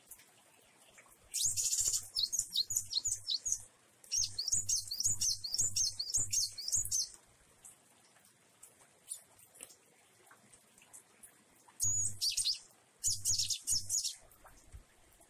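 Caged cinereous tit (glatik wingko) singing in three runs of rapid, high-pitched chattering notes: about a second in, again from about four seconds, and near the end.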